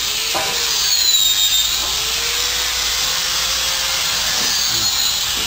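Steady mechanical whirring hiss of a power tool or small motor running, with a faint wavering whine.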